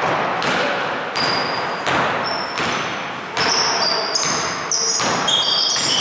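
A basketball being dribbled on a hardwood gym floor, about one bounce every 0.7 seconds, each bounce echoing in the hall. From about halfway through, rubber-soled sneakers squeak in short high chirps on the floor.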